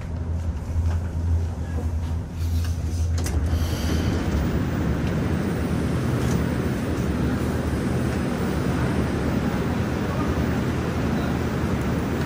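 Inside a Moscow Metro 'Moskva-2020' (81-775/776/777) train car: a steady low electrical hum, then about three seconds in a louder, even rushing noise sets in and holds.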